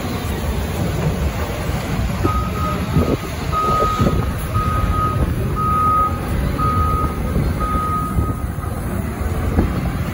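CAT 950M wheel loader's diesel engine running under a backup alarm that beeps about once a second, six times, starting a couple of seconds in and stopping shortly before the end: the loader reversing while working the snow pile.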